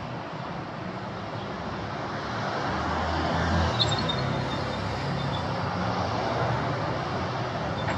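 City road traffic: a steady wash of passing vehicles, with one vehicle's engine rumble growing louder about two and a half seconds in.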